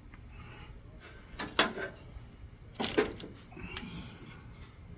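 Hard plastic clicks and knocks from a truck light's bulb socket and lamp housing being handled and fitted, coming in two clusters, the louder one about a second and a half in and another near three seconds, with lighter ticks after.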